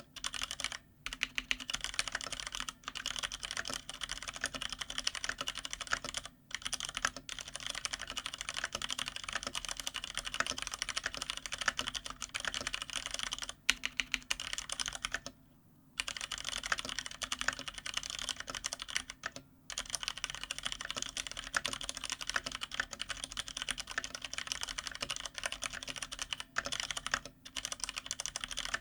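Fast, continuous typing on a GTune (Hansung) GK993B SKY mechanical keyboard with stock, unlubed Cherry MX Brown switches, set on a desk pad. There are a few brief pauses, the longest just past the middle.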